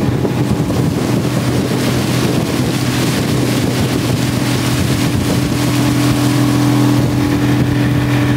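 Outboard motor driving an aluminum bass boat under way, a steady engine drone with a rush of wind and water over it. The motor is running well again now that the primer bulb is being squeezed the right way.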